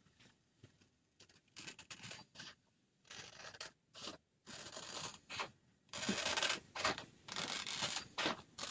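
Scissors cutting a sheet of sticky transfer material in half: a run of short snips, louder and closer together from about six seconds in.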